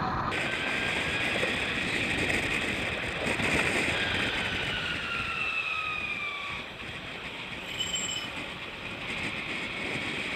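Electric tram running along its street track, heard from at the car's window: a steady rolling rumble with a motor whine that falls in pitch, and a brief high squeal about eight seconds in. The footage is played at double speed.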